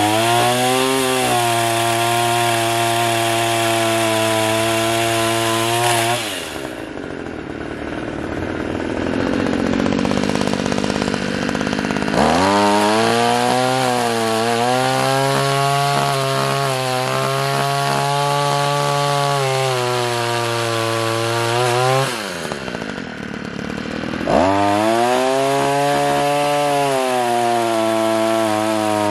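Two-stroke gas pole saw with a 10-inch Oregon bar, its small engine running at full throttle while cutting overhead tree branches. Twice it drops back to idle for a few seconds, then revs up again.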